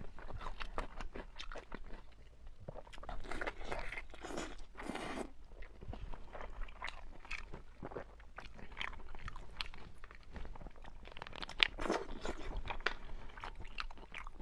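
Close-up mouth sounds of biting and chewing braised pork intestine bundles: a rapid run of short clicks and smacks, with a longer, noisier bite about four seconds in.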